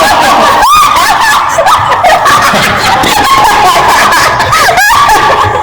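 Several high-pitched voices laughing and squealing over one another, loud and dense.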